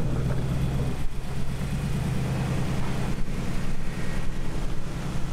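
Nissan Y62 Patrol's 5.6-litre petrol V8 running steadily at low revs as the vehicle crawls past over a rough dirt track.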